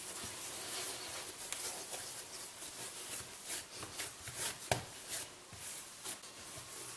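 Hands rubbing and patting a ball of whole-wheat dough on a wooden board: irregular soft scuffs and light taps, with one sharper knock about two-thirds of the way through.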